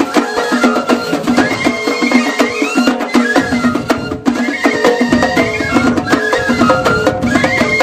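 Music with a steady percussion beat under a shifting melody.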